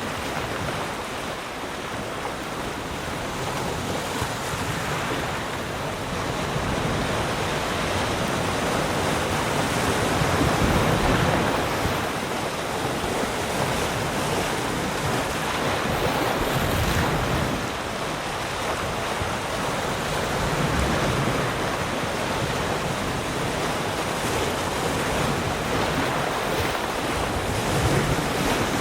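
Ocean waves breaking and washing on the shore in a continuous surf, swelling and easing every few seconds.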